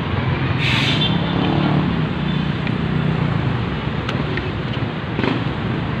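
Street traffic noise: vehicle engines running with a steady low hum, a short hiss about a second in and a brief sharp click near the end.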